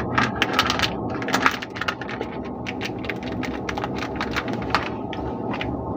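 Plastic soap wrapper crinkling and crackling as hands fold it around a Lux soap bar, in quick irregular crackles that are densest in the first two seconds, over a steady low background drone.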